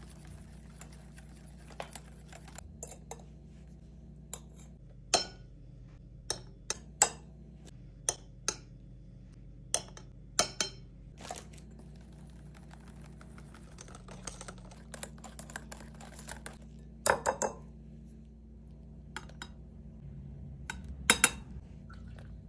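Small metal whisk clinking and tapping against a glass mixing bowl as batter is whisked, in scattered sharp ticks. A louder clatter of dishes comes near the end.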